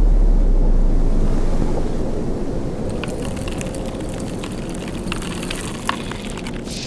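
Logo-animation sound effect: a deep rumble fades into a noisy rush, with scattered crackles and clicks in the second half and a short whoosh near the end.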